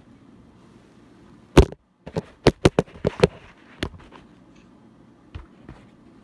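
A series of sharp knocks and bangs: one loud one about a second and a half in, then a quick run of five or six about a second later, and a few fainter ones after.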